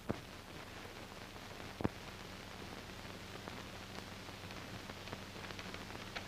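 Steady hiss and low hum of an old film soundtrack, with a few faint clicks and light paper rustling as the pages of a checkbook are handled.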